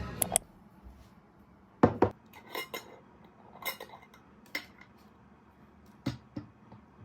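Dishes and utensils being handled: scattered light clinks and knocks, about ten of them, with quiet between.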